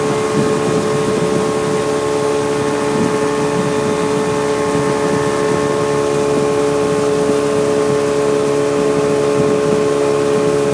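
Motorboat engine running steadily at cruising speed, one even pitch throughout, with a constant rush of wind and water.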